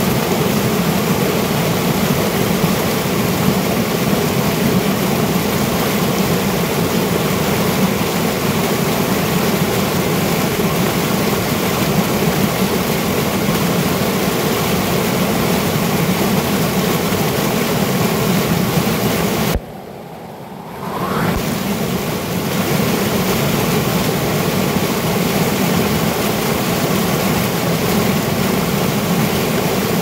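White water of a mountain stream cascading over boulders: a loud, steady rushing and splashing. About two-thirds of the way through it drops much quieter for a second or so, then swells back to full.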